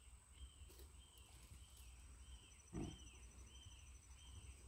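Near silence with a faint animal call: a short rising-and-falling note repeated about twice a second. One soft knock a little past the middle.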